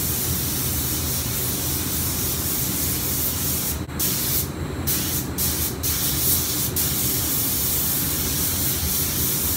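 Compressed-air mini touch-up spray gun hissing steadily as it sprays thinned white base coat, with the trigger let off briefly about five times between about four and seven seconds in. A steady low hum runs underneath.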